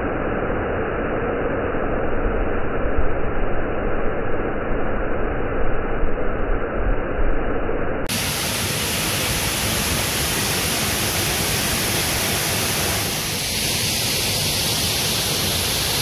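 Steady rushing of a small waterfall pouring into a pool. It sounds muffled at first, then fuller and brighter after a sudden change about halfway through.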